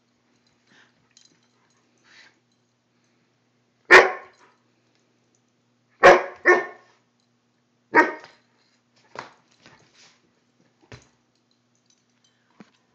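Wolf pup barking: four loud barks, the middle two close together, followed by a few fainter short sounds.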